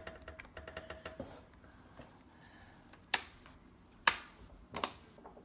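Plastic clips of an HP Pavilion dv6 laptop's screen bezel being pressed in: a run of small light clicks in the first second, then three loud sharp snaps as clips click into place, about a second apart.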